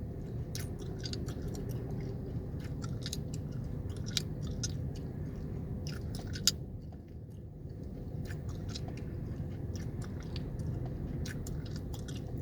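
Gum chewing close to the microphone: irregular smacks and clicks, several a second, over the steady low rumble of the car. One sharper click comes about six and a half seconds in, followed by a short pause in the chewing.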